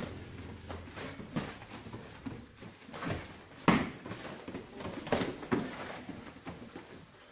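Boxing-gloved punches and kicks landing during Muay Thai sparring: several irregular smacks, the loudest about three and a half seconds in.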